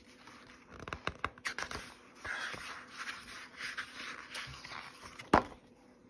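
Pages of a picture book being turned one after another by hand: paper brushing and sliding with small clicks, and one sharp tap a little over five seconds in.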